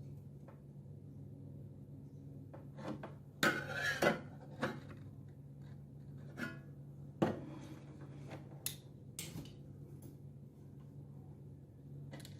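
Small hard objects being handled on a workbench: scattered clicks and knocks with a short clatter a few seconds in, over a steady low hum.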